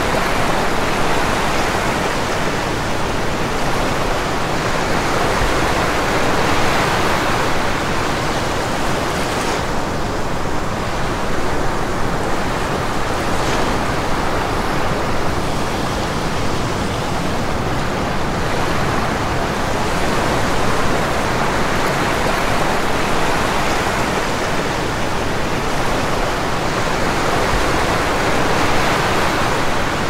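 Small sea waves washing in and out over a sandy beach at the water's edge, a steady rushing hiss that swells and eases every several seconds.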